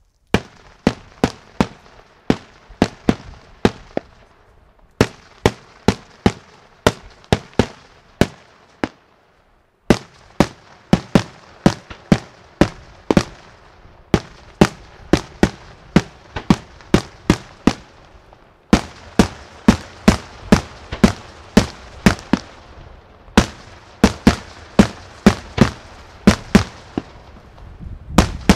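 Daytime aerial fireworks: shells bursting overhead in a long rapid series of sharp bangs, about three a second, with brief pauses between salvos.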